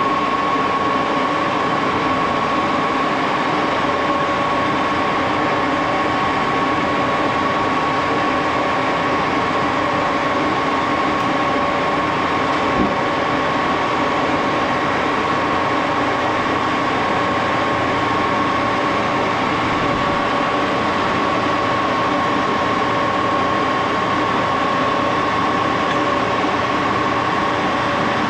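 Eighty-year-old Axelson gear-head engine lathe running steadily, a constant machine hum with a high whine from its geared headstock. A single brief click about halfway through.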